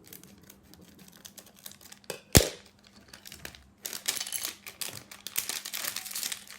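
Plastic wrapper of a LEGO minifigure pack being handled and opened: scattered small clicks and rustles, a sharp snap about two and a half seconds in, then dense crinkling of the plastic from about four seconds on.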